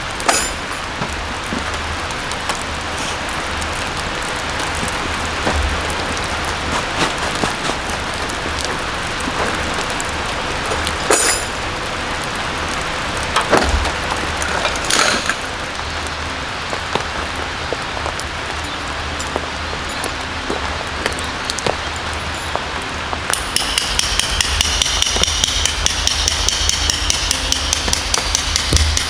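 Steady rain falling, with a few scattered knocks. In the last five or so seconds, rapid ringing metal hammering starts, about four to five strokes a second.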